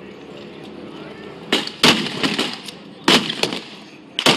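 Blank gunfire in a WWII battle reenactment: four sharp shots, the first two close together and the others about a second apart.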